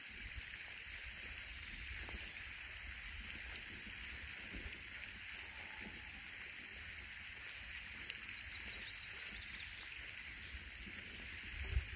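Quiet outdoor ambience: a steady faint hiss over a low rumble, with a few faint ticks and a small low thump near the end.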